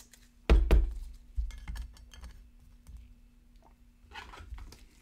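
Two sharp knocks about a quarter second apart, then lighter clicks and taps and a brief rustle, as trading cards and a plastic display stand are handled on a tabletop.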